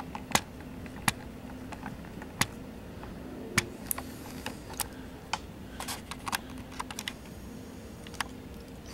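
Camera handling noise: irregular sharp clicks and taps as a handheld camera is picked up and moved about, over a steady low hum.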